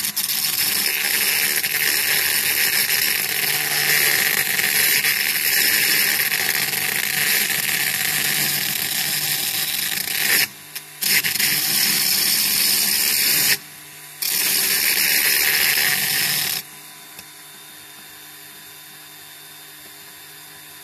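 Electric rotary tool with a grinding stone bit grinding down the end of a die-cast toy's steel axle to free the wheels. A loud, steady, hissing grind breaks off briefly twice, and stops about three-quarters of the way through, leaving a quieter steady hum.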